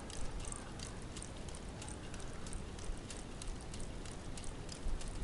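Plastic ratchets of a K'nex buggy's ratchet-driven CVT clicking lightly as the buggy drives, about three or four clicks a second.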